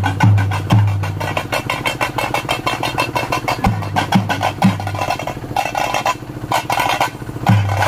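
Dappu frame drums beaten in a fast, steady rhythm by a procession drum band. Deep low notes come in groups of three, each sliding down in pitch, near the start, about midway and again near the end.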